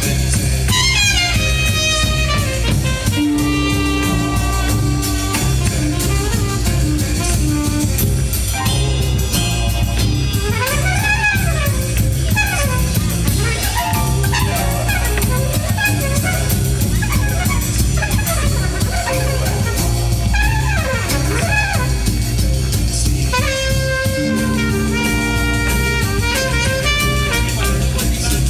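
Background jazz music: horn lines, with melodic runs sliding up and down, over a steady drum-kit beat.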